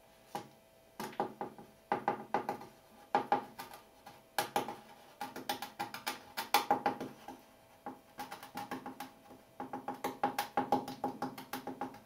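Small plastic hand coffee grinder being twisted, clicking in quick rattling runs of about a second each with short pauses between them, as it grinds coffee out.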